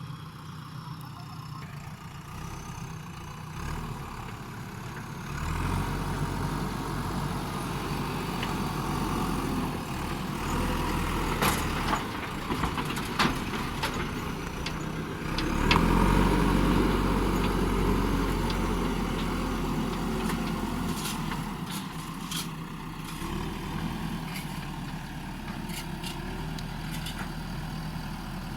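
JCB backhoe loader's diesel engine running, picking up load about five seconds in and again more strongly about fifteen seconds in as the machine works. A few sharp knocks come near the middle.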